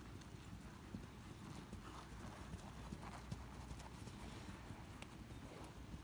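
Hoofbeats of a ridden horse on the arena footing, soft and fairly quiet, with the horse passing close by around four seconds in.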